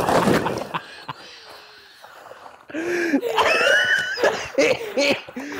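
A loud rushing noise that fades out within the first second, then wheezing laughter from about halfway in.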